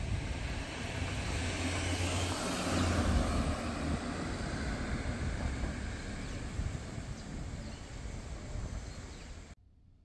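Outdoor street ambience with car traffic: a vehicle rumble swells about three seconds in and slowly fades, then the sound cuts off suddenly near the end into faint room tone.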